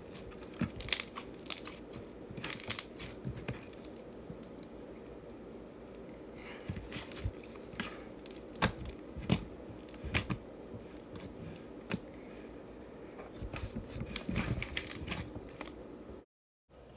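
Hands kneading and squishing a blue slime with foam beads mixed in, giving irregular crackling clicks and pops. It cuts off suddenly near the end.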